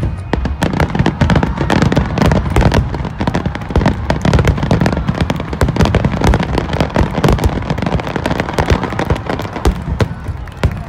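Fireworks finale barrage: many aerial shells bursting in rapid, overlapping succession. The bangs and crackles are packed closely, over a continuous low rumble, with no break.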